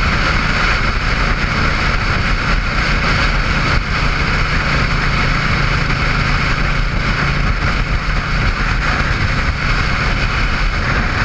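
Steady rush of wind on the microphone at road speed, with a cruiser motorcycle's engine running at a steady drone underneath.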